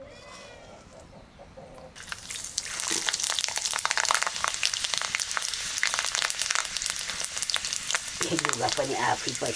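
Food frying in a hot pan, sizzling and crackling. It starts about two seconds in and runs on steadily, with a voice over it near the end.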